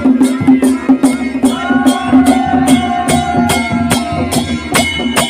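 Kumaoni chholiya wedding band playing folk music. A bagpipe (mashakbeen) holds a steady drone under a wavering melody, while cymbals and a drum keep a steady, quick beat.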